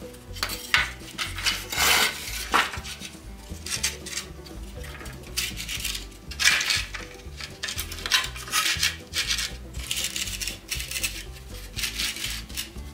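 Old weathered wooden boards being slid, shuffled and dropped on a concrete floor by hand: irregular scraping and wooden clatter, loudest about two seconds in and again past halfway, over quiet background music.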